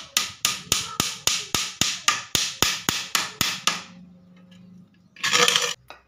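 A small hammer tapping nails into a bent wooden strip of a bird-cage frame: about fourteen quick, even strikes, about four a second, stopping a little before the four-second mark. A short loud scraping noise follows near the end.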